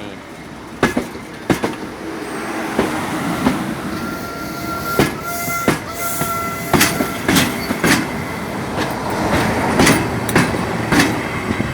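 Class 57 diesel locomotive running under load as it moves, with sharp irregular knocks from its wheels passing over rail joints. Midway a thin high tone holds for about two seconds.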